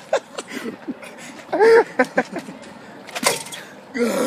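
A young man's voice laughing and calling out, with a single sharp knock a little over three seconds in.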